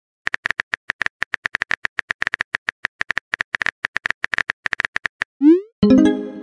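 Rapid clicks of a phone keyboard's typing sound for about five seconds, then a short rising swoosh and a chime as a message is sent and appears in the chat.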